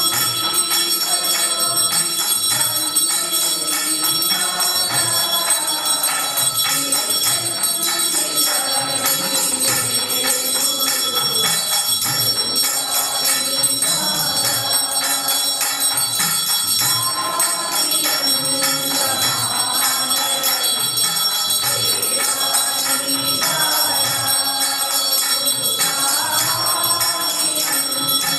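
Bells ringing steadily throughout, over voices singing a devotional song.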